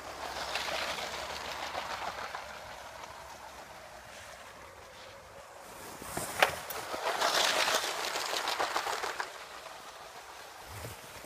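Lego train running on plastic track, its wheels clattering and clicking over the rails. It is loudest in the first two seconds as it passes close, and again from about seven to nine seconds. A single sharp knock comes about six and a half seconds in.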